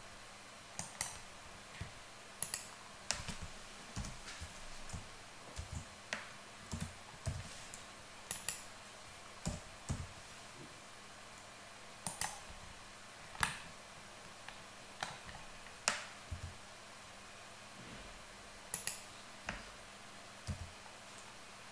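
Computer keyboard keystrokes and mouse clicks, sharp and irregular, about one or two a second, during work in a 3D modelling program.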